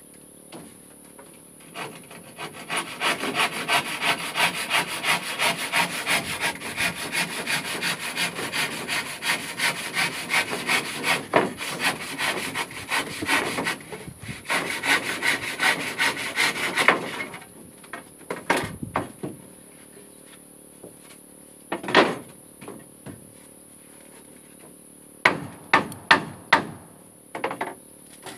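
Handsaw cutting through a wooden floor plank: steady back-and-forth strokes, about two to three a second, that stop a little past halfway. After that, a few sharp knocks.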